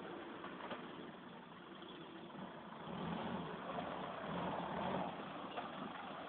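A vehicle engine running, growing somewhat louder from about three seconds in.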